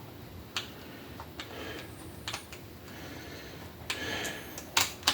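Light clicks and rattles of a plastic cordless pole saw being handled while a screw is tightened. A scraping rustle comes in about four seconds in, followed by two sharp clicks near the end.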